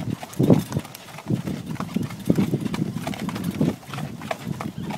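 Horse's hooves clip-clopping on a dirt road as it pulls a cart, amid a steady run of small irregular knocks.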